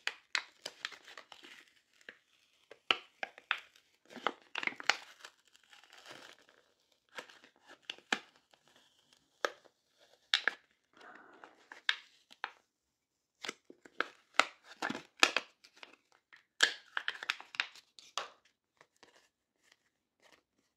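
Glued leather skin of a Polaroid SX-70 being peeled from its thin aluminium backing: the adhesive crackles and tears in irregular bursts of clicks and rasps, with a few short pauses.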